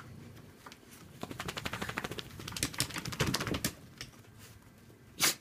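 Two dachshunds playing: a rapid run of clicks and scratches from claws scrabbling on a quilted mat, then one short, loud, sharp sound near the end.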